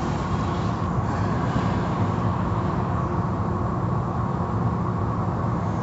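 Automatic car wash tunnel machinery running, heard through the glass: a steady low hum of motors, spray and spinning cloth brushes with a faint steady whine above it.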